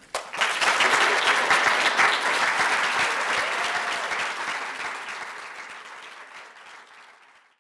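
Audience applauding at the end of a reading, dense clapping that starts just after the last word and fades away gradually toward the end.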